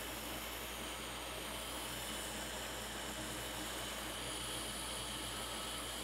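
A small electric blower running steadily, giving an even hiss with a low hum underneath.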